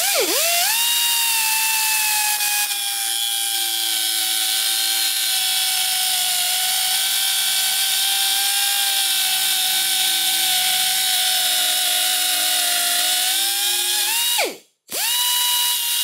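Air-powered angle grinder spinning up to a steady whine and grinding through a steel bolt, with a hissing scrape of metal on the disc; the pitch sags a little while it cuts. It stops briefly near the end and spins up again.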